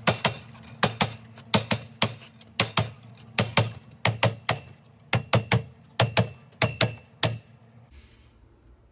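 Hammer tapping down an aluminum deck railing's top rail to snap it onto its locking fittings: about twenty sharp metallic taps, often in quick pairs, stopping near the end.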